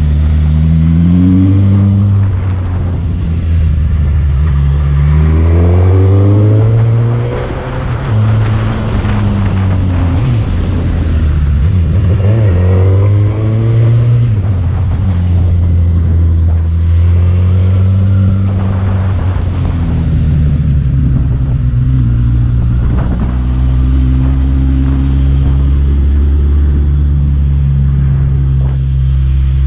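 Motorcycle engine climbing a steep winding road, its pitch rising under throttle several times and dropping back at each gear change, with a steady rush of wind.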